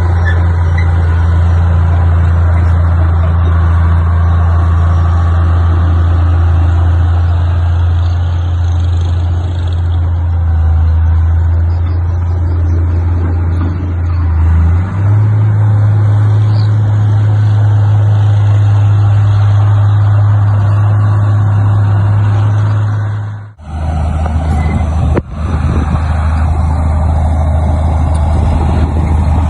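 Heavy diesel engine running steadily under load, its pitch stepping up about halfway through. The sound drops out briefly about three-quarters of the way through, then the engine continues.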